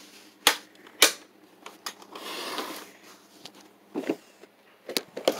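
Sharp clicks and knocks from handling a die-cast toy car and its cardboard-and-plastic box, with a brief rustle about two seconds in and a few more small clicks near the end.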